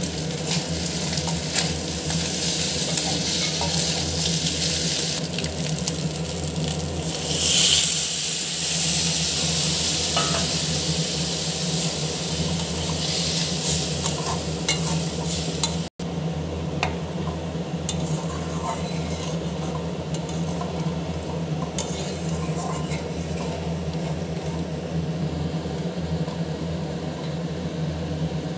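A metal spatula stirring and scraping fish-head rice mixture in an aluminium wok, which sizzles as it fries, with small clinks of the spatula on the pan. The sizzle surges louder about seven seconds in; after a cut it is softer, as the dish simmers in added liquid.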